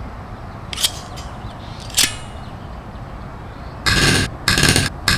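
Two sharp clicks, the second ringing briefly, then three short bursts of rifle fire about half a second apart, from a sound-effect battle rifle.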